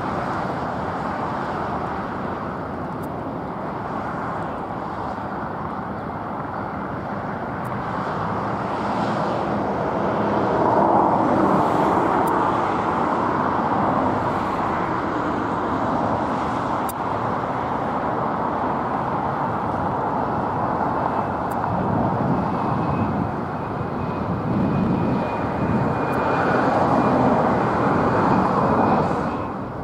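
Jet airliner on final approach to land, a steady rush of engine noise that swells twice, with a thin high whine from the engines coming in during the last third.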